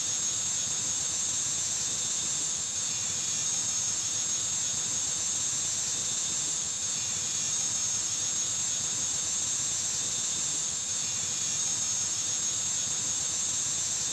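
Angle grinder running with a steady high whine, its abrasive disc grinding the face of an old engine valve.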